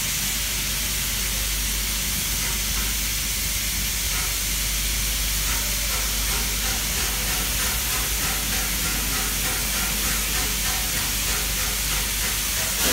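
Steady hiss of steam escaping from the LMS Princess Coronation Class Pacific steam locomotive 6233 Duchess of Sutherland.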